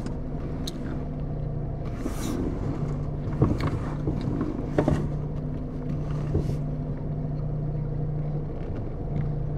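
Car engine running with a steady low hum, heard from inside the cabin as the car is moved a short way at low speed, with a few light clicks.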